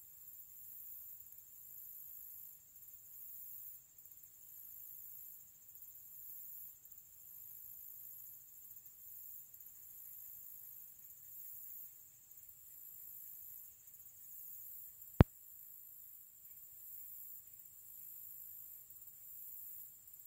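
Faint high-pitched insect chorus, swelling and dipping about once a second, with a thin steady whine just beneath it. One sharp click about fifteen seconds in.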